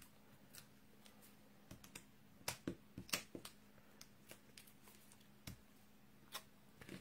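Faint, scattered light clicks and taps of metal tweezers handling paper and foam adhesive dots on a card, bunched about two and a half to three and a half seconds in. A faint steady low hum sits underneath.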